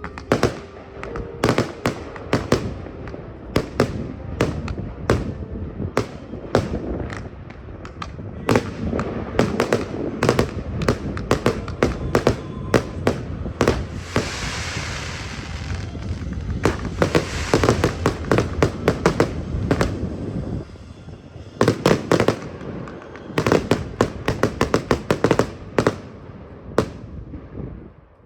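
Fireworks finale: a dense barrage of shell bursts and rapid bangs, with two stretches of hissing crackle around the middle. After a short lull about two-thirds through come more volleys of quick bangs, and then it stops near the end.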